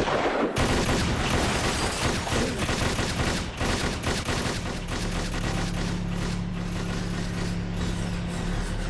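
Dense, rapid clatter of gunfire sound effects. A low steady hum joins about halfway through.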